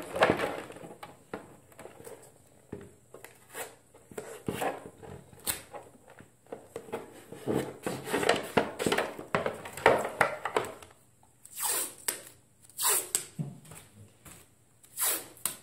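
A thin white plastic armour piece, taped together with blue painter's tape, being handled and shifted about on the work table. Irregular crinkles, taps and scrapes, with a few sharp rasps in the second half.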